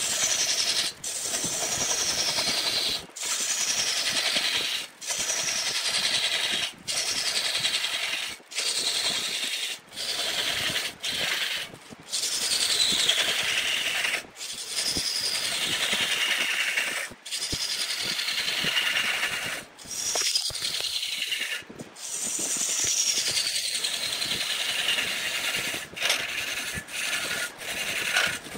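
Wood lathe with a turning tool cutting into the spinning workpiece, in repeated passes of a second or two, each with a falling high whine, broken by short gaps.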